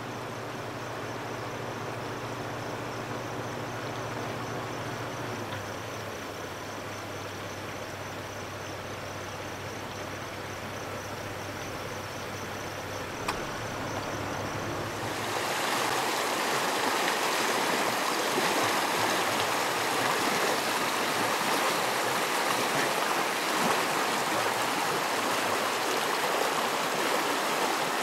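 A small creek running fast over rocks, a steady rush of water that grows clearly louder about halfway through. Before that, the rush is fainter, with a low steady hum under it.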